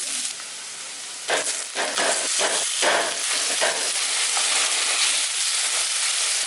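Food sizzling in hot oil in a pan, a dense steady hiss. From about a second in it is stirred, with irregular scraping strokes.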